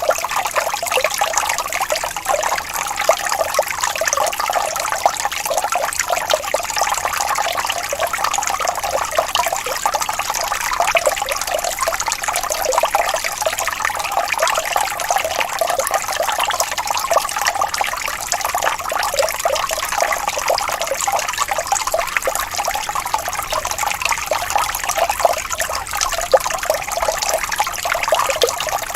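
Water falling and splashing steadily: a continuous hiss of many small splashes, with little low rumble.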